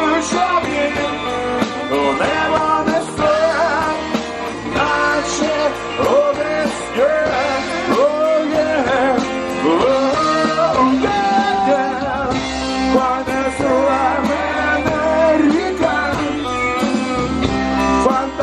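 Live rock band playing: electric guitars, bass guitar and drums, with a lead line that slides and bends in pitch over the steady band.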